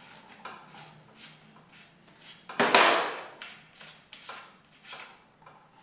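Tools and bike parts being handled on a workbench: a string of light knocks and clicks, with one louder scraping clatter about two and a half seconds in.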